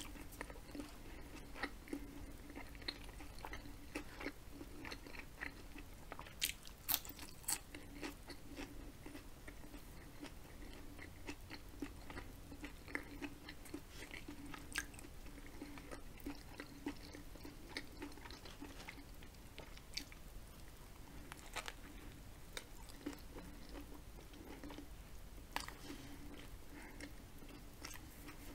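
A person chewing a Subway sandwich close to the microphone, with scattered crunches and small clicks, the loudest cluster about seven seconds in.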